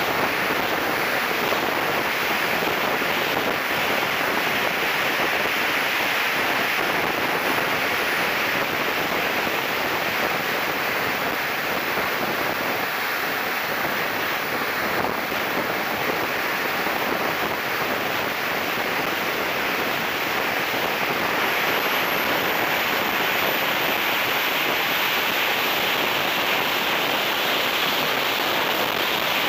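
Steady rush of air buffeting the wing-mounted camera on a radio-controlled F9F-6 Cougar jet in flight, with the thin, high whine of its 100N-class model jet turbine; the whine glides up in pitch about two-thirds of the way through.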